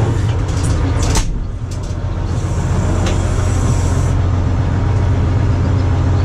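Bizon combine harvester's diesel engine running steadily, heard from inside the cab. A few clicks come about a second in, and a brief hiss between about two and four seconds in.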